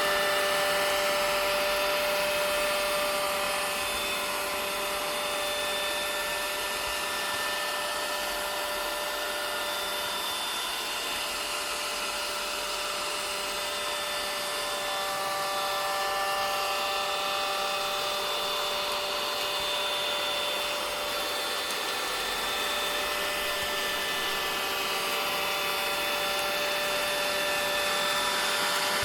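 Vacuum cleaner running steadily: a continuous motor whine with airflow hiss, the whine shifting slightly in pitch around the middle.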